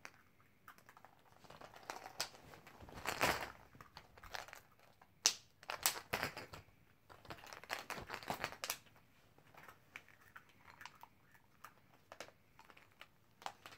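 Hollow plastic Easter eggs being filled and snapped shut by hand: scattered sharp clicks of the plastic halves, with crinkling and rustling of plastic. A longer rustle comes about three seconds in, and a run of sharp clicks follows.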